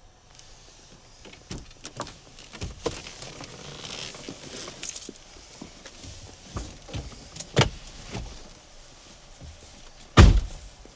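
Inside a parked car just after the engine has stopped: faint rustling and small clicks as the occupants shift in their seats, a sharper click about two-thirds of the way through, and a loud car door thud near the end as one of them gets out.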